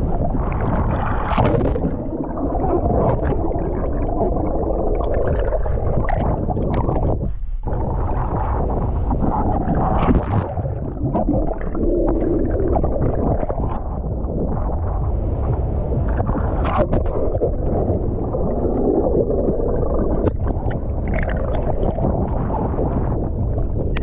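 Muffled, continuous churning and sloshing of sea water, a dense low rumble that swells and ebbs irregularly, with a short drop-out about seven seconds in.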